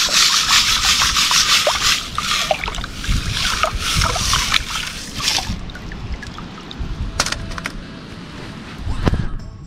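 Water sloshing and splashing as a round wire-mesh sieve of river gravel is swirled and shaken in shallow river water, loud for about the first five seconds, then dying down to trickling with a few sharp clicks as the sieve is lifted out.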